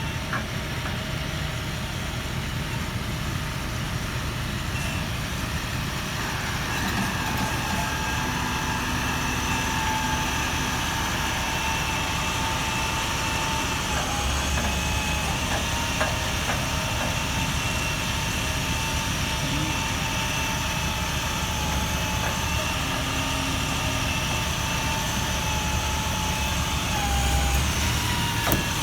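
Heavy truck engine running steadily, with a steady high whine over its low rumble. The engine swells briefly twice, about halfway through and near the end.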